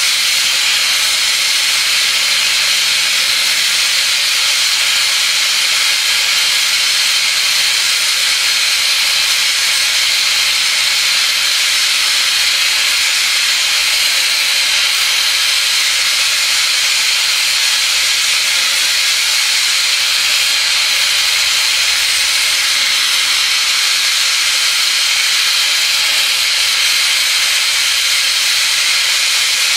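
Oxygen-fuel hand torch burning with a steady, unbroken hiss as its flame heats a metal bar.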